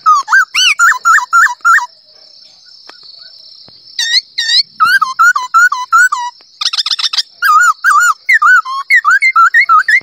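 A man whistling bird-call imitations with his mouth: quick runs of short swooping notes that slide down and back up, with a break of about two seconds after the first two seconds and a fast trill just past the middle. A steady high-pitched drone runs underneath.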